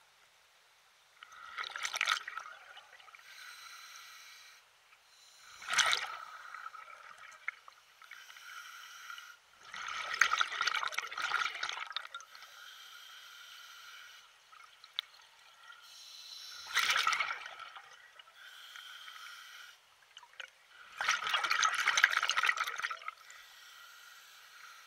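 Lake water splashing in five separate surges a few seconds apart, with quieter lapping and trickling between them, as small waves wash in.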